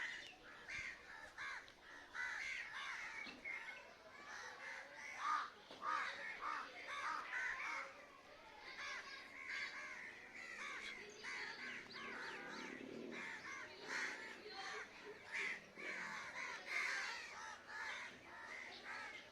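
A flock of crows cawing, many short calls overlapping one another without a break, fairly faint.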